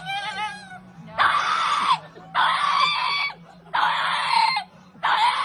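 Loud screaming cries, about five in a row, each under a second long and falling in pitch at its end, coming roughly every second and a quarter. A steady low hum runs underneath.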